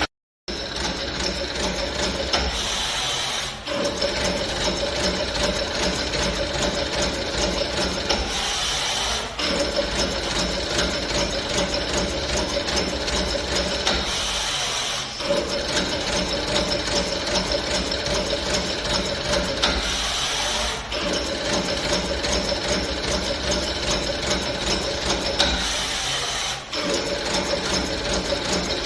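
CNC brush tufting machine running, a fast, even clatter of tufting strokes. Every five to six seconds the clatter breaks for about a second of hissing, then resumes.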